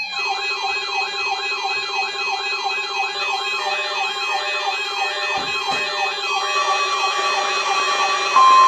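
Weather-alert receiver alarms: a warbling siren tone sweeping about twice a second over several steady tones. Near the end the NOAA Weather Radio warning alarm, a single steady 1050 Hz tone, comes in and grows louder, signalling a test of the warning alarm system.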